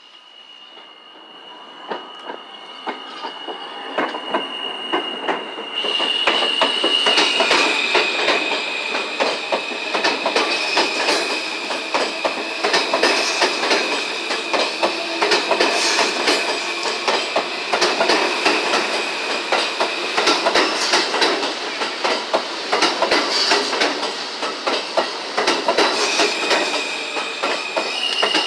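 New York City subway train approaching and then running close alongside the platform, growing louder over the first few seconds. Its wheels give a steady high squeal that shifts pitch twice, over fast clicking as they cross the rail joints.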